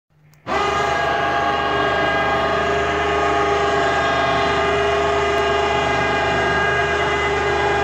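Motor of a homemade wheelchair elevator running as the wooden platform lowers: a loud, steady whine made of many held tones, starting abruptly about half a second in.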